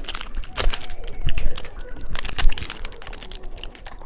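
Hands handling a small pack of candy and its plastic packaging: a quick, irregular run of light clicks and crinkles.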